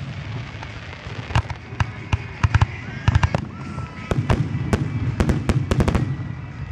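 Aerial fireworks display: a rapid series of sharp shell bursts and crackling reports, coming in quick clusters that thicken through the middle and latter part, over a steady low rumble.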